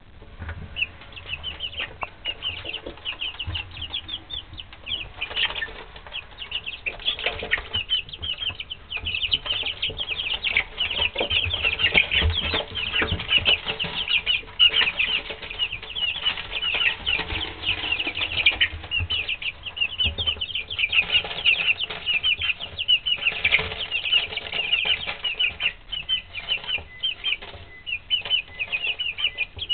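A brood of three-week-old Wyandotte and Easter Egger chicks peeping constantly, many short high peeps overlapping, with scattered light knocks and scuffles among them. The peeping starts within the first second.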